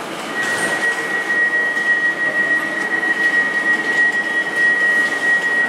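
Passenger train moving alongside a station platform, its running noise joined shortly in by a steady, high-pitched whine.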